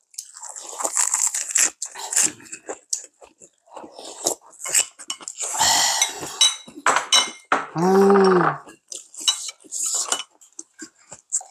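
Close-up eating sounds: crunchy chewing of lettuce wraps, with chopsticks and spoons clicking against bowls. A short voiced hum about eight seconds in.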